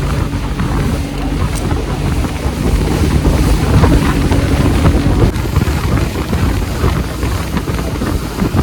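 Wind buffeting the microphone over a low, steady drone and a rushing noise.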